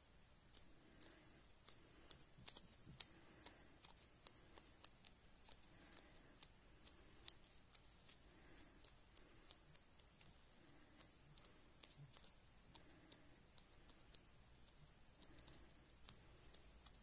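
Faint, sharp little clicks, two or three a second and unevenly spaced, over a near-silent small room.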